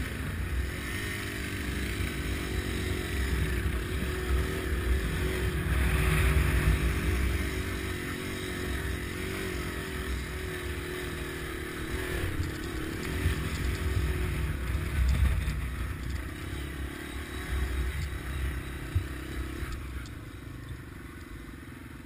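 Dual-sport motorcycle engine running on a dirt trail, its pitch rising and falling with the throttle, over a heavy low wind rumble. It eases off and gets quieter near the end.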